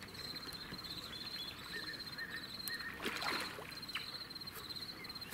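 A steady, high, rapidly pulsing insect trill, with a few short chirps around two seconds in and a brief noisy swish about three seconds in.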